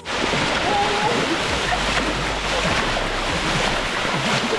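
Steady rushing of river water, an even noise with no rhythm.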